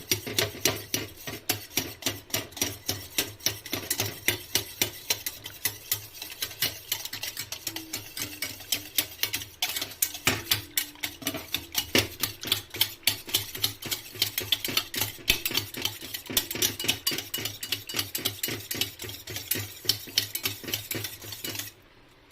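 Curd (yogurt) being beaten in a bowl: a rapid, steady clicking of the utensil against the bowl, about four strokes a second, with a brief break near the end.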